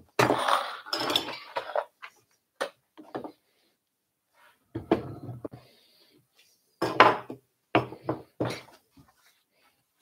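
A run of clatters and knocks as cordless drills and pieces of timber are picked up, moved and set down on a wooden workbench, busiest in the first two seconds, then separate knocks with short pauses between.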